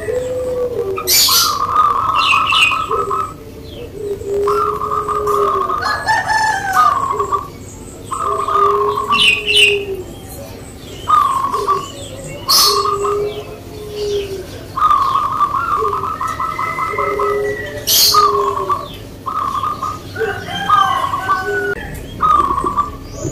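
Caged zebra doves (perkutut) singing their cooing song: trilled, burry notes repeated in a steady rhythmic phrase, with lower soft coos running alongside. Short sharp chirps from other birds cut in now and then.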